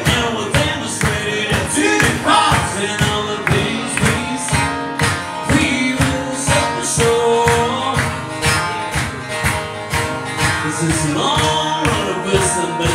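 Live acoustic music: two acoustic guitars strummed in a steady rhythm, with a man singing the melody.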